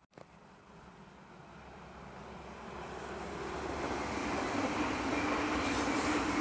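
Dutch NS double-deck electric passenger train approaching and passing, its running noise growing steadily louder. A steady hum comes in as the front draws level.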